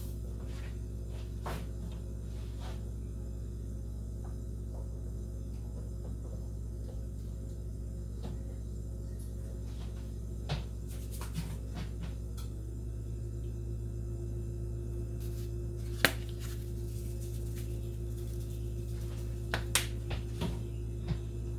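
Steady low hum, joined by a higher steady tone about twelve seconds in, with a few scattered light clicks and taps; the sharpest click comes about sixteen seconds in and a small cluster near the end.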